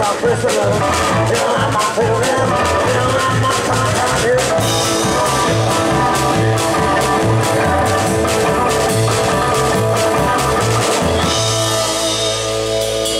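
Live band playing an instrumental passage on hollow-body electric guitar, upright bass and drum kit, with a steady bass and drum beat. A little after eleven seconds the band stops on a long held chord that rings out.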